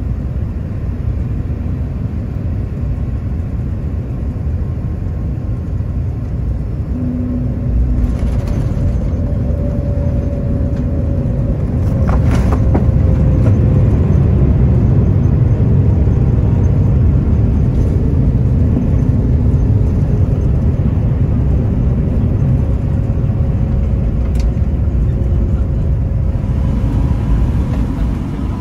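Cabin sound of a Boeing 787-9 landing: a steady rumble of engines and airflow that jumps about 8 seconds in as the wheels touch the runway, grows louder again around 12 seconds during the rollout, then slowly eases off. Near the end it cuts to the quieter cabin hum of another airliner on approach.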